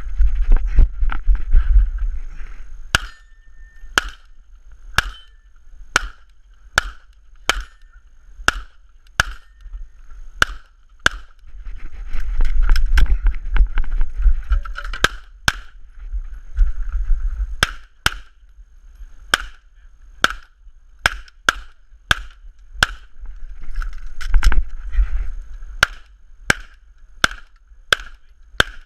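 Pistol shots during a timed USPSA course of fire: dozens of sharp shots, some in quick strings and many spaced about a second apart, with stretches of low rumble between them.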